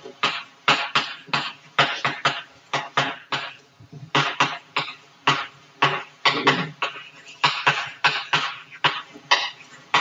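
Chalk writing on a blackboard: an uneven series of sharp taps and short scratches, one for each stroke of the chalk, about three a second.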